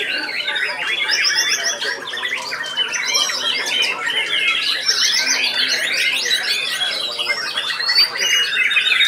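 White-rumped shamas (murai batu) singing loudly together: a dense, unbroken tangle of rapid chirps, trills and sharp whistled phrases from several birds at once.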